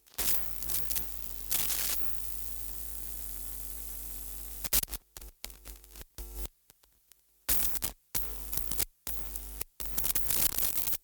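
Static noise over a low hum, first steady, then cut abruptly on and off in stuttering pieces from about halfway through: a glitch effect closing out a lo-fi track.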